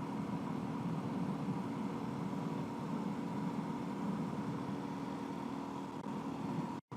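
Suzuki DR-Z400S single-cylinder engine running steadily under way, with wind rush. The sound cuts out abruptly near the end.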